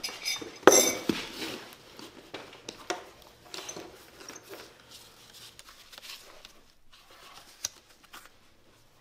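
A ceramic mug with a spoon in it is set down on a table with a clink and a knock about a second in. Then come the soft rustles of paper pages being leafed through, with an odd small tap.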